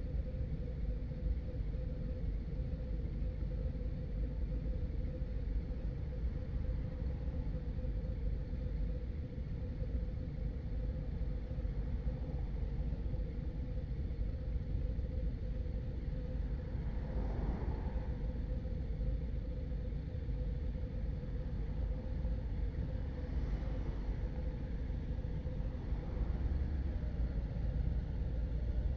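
Touring motorcycle engines idling together in a steady low rumble, picked up by a camera mounted on one of the bikes. They get a little louder near the end.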